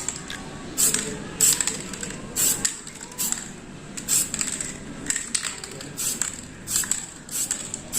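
Aerosol spray-paint can sprayed in short, repeated bursts of hiss, about one every 0.7 seconds, as coats of paint go onto a bicycle frame.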